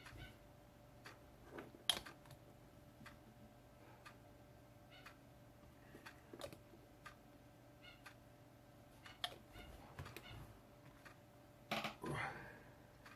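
Small plastic scale-model parts and tools being handled on a workbench: sparse, irregular light clicks and taps, with a sharper click about two seconds in and a louder clatter near the end.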